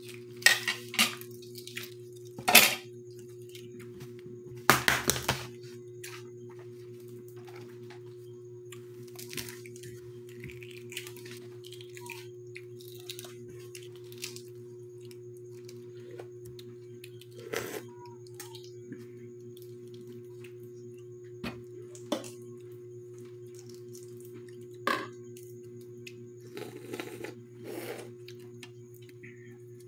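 Balut duck eggshells being cracked and peeled by hand: scattered sharp cracks and short crackly bursts of shell, the loudest about two and a half seconds in and a cluster around five seconds in. A steady low hum of a few fixed tones runs under it all.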